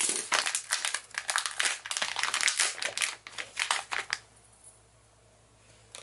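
Plastic packaging pouch crinkling as it is picked up and handled, a dense run of crackles for about four seconds that then stops.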